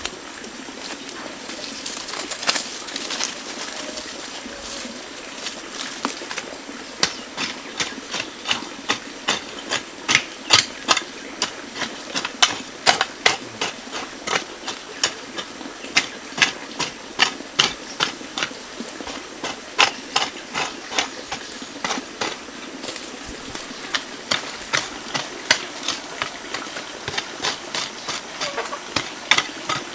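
A hand tool striking repeatedly and rhythmically, about two sharp strikes a second, starting several seconds in, over a steady outdoor background haze.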